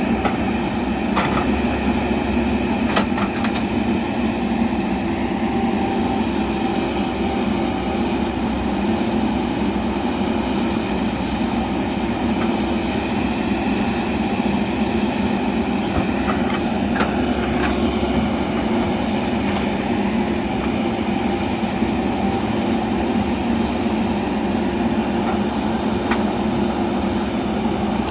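JCB backhoe loader's diesel engine running steadily under work, with a few short clicks of the machine's parts.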